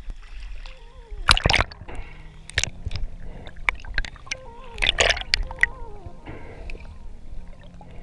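Water splashing and sloshing around a swimmer as a spearfisher moves through a river at night. There are several sharp splashes, the loudest about a second and a half in and about five seconds in.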